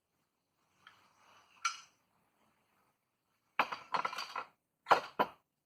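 Metal parts of a drill stand clinking and knocking together as they are handled: a faint rustle and one click, then a quick cluster of clinks, then two sharp clinks near the end.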